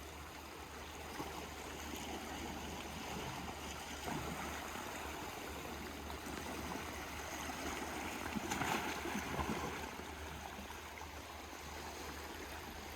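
Calm sea water lapping and sloshing in small waves, swelling now and then, loudest about eight and a half to nine and a half seconds in, over a steady low rumble.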